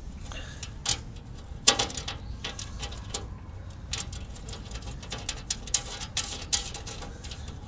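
Irregular metallic clicks and taps as a bolt and nut are fitted by hand to a bare metal under panel on a car's underside, with one sharp knock about a second and a half in.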